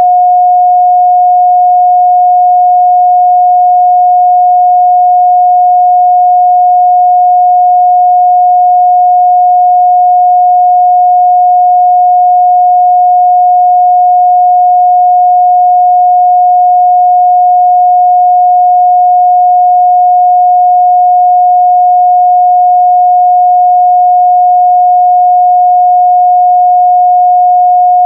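A steady 721 Hz sine-wave test tone, one pure unchanging pitch held at constant loudness.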